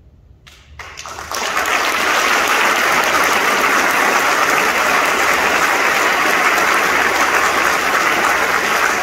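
Audience applause: a few scattered claps about half a second in, swelling within a second into full, steady clapping.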